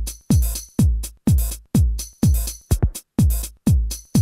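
Electronic house-style track's programmed drum beat: a deep kick drum about twice a second, each hit dropping quickly in pitch, with hissy hi-hats between, and a quick stutter of two short hits about two-thirds of the way through.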